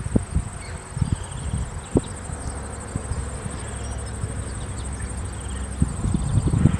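Insects trilling steadily in a high, fast-pulsing chirr, like crickets, over irregular low thumps and knocks, the loudest near the start and end.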